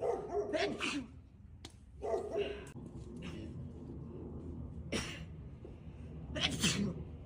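A run of short sneezes, some with a brief voiced sound; the loudest is about six and a half seconds in.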